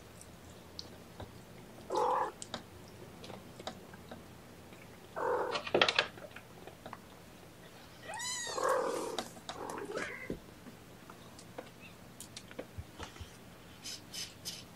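Cats meowing: several separate meows, the longest about eight seconds in, rising and then falling in pitch.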